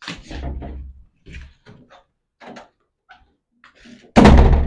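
A door slams shut with a loud, sudden bang about four seconds in, after a few faint scrapes and movement sounds.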